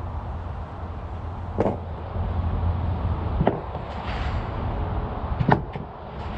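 Pistol shots from a Glock, three of them about two seconds apart, over a steady low rumble.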